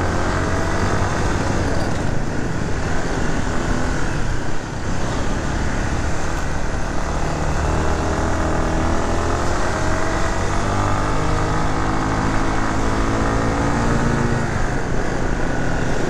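A motor vehicle's engine running on the move, with steady road and wind noise. Its pitch dips briefly about four and a half seconds in, then rises gradually through the second half as the vehicle speeds up.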